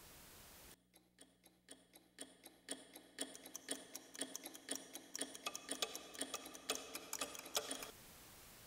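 Rapid, even ticking like a clock, starting about a second in, growing louder and denser, then cutting off suddenly near the end.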